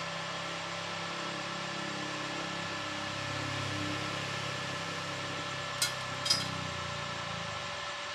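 A steady machine hum with a hiss, broken by two sharp clicks about half a second apart near the end.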